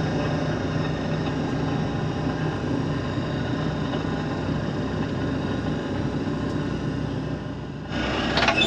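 John Deere self-propelled swather's engine idling steadily, heard from the cab. The sound changes abruptly near the end.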